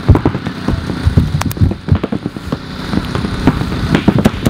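Paintball markers firing in rapid, irregular volleys, with paintballs smacking into the inflatable air bunkers.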